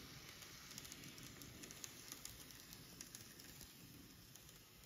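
Model KiHa 07 railcar running on its track: a faint steady hiss with scattered light clicks through the first three seconds or so.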